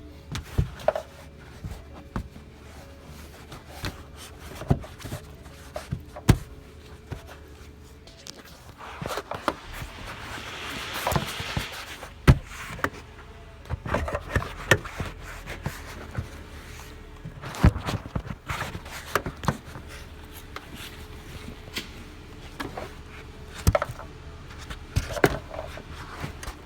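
Scattered clicks and knocks of plastic trim and rear-seat parts being handled and pushed back into place, with a longer scraping rustle about ten seconds in.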